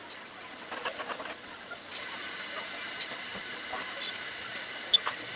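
Batter pakoras deep-frying in a pot of hot oil: a steady sizzle with small scattered pops, and one sharper tick near the end.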